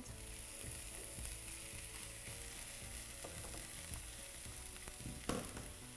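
Finely diced spring onion whites sizzling steadily in a non-stick frying pan, stirred with a spatula that gives small scrapes and taps now and then.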